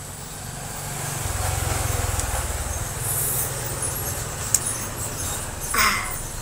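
A motor vehicle's engine running low, swelling about a second in and easing off near the end, with a sharp click partway through.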